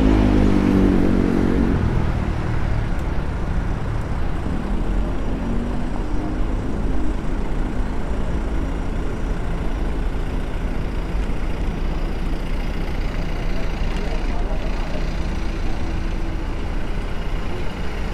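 Busy city street traffic: a vehicle passes early on with its engine note falling in pitch, then a steady traffic rumble continues with passers-by talking faintly.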